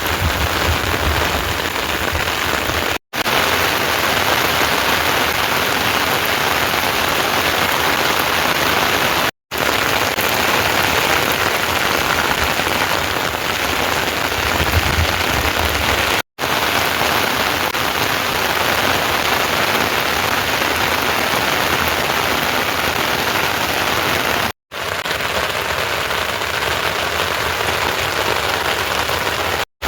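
Heavy rain falling steadily, a dense even hiss that cuts out for an instant about five times.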